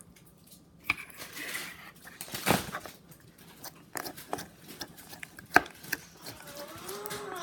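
Slime being squished, poked and stretched by hand: a run of sticky clicks, pops and squelches with a few louder smacks. Near the end there is a brief wavering pitched sound.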